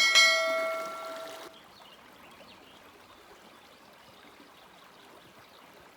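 A single chime rings out and fades, cutting off about a second and a half in. After that comes a faint, steady rush of a forest creek's flowing water.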